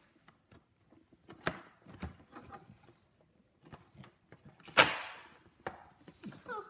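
Cardboard advent calendar being handled as fingers push and pry at a perforated door: scattered taps and scrapes, with one louder burst of cardboard noise about five seconds in.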